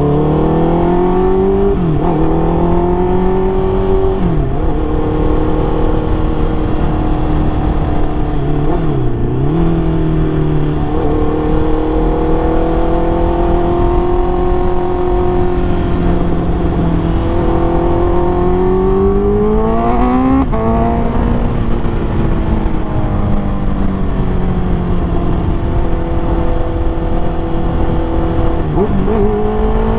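Honda CBR650R's inline-four engine breathing through a MIVV MK3 full-system exhaust, running steadily under way. Its pitch drifts up and down, with about five brief dips and recoveries, around two, four and a half, nine, twenty-one and twenty-nine seconds in, as the revs change.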